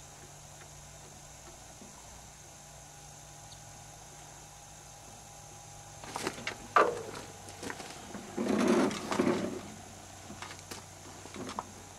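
Handling noise from a PTR-91 rifle on a shooting bench. A few sharp clicks and knocks come about six seconds in, then a scuffing rustle of about a second as the shooter settles in behind the rifle, and a few lighter clicks near the end. No shot is fired.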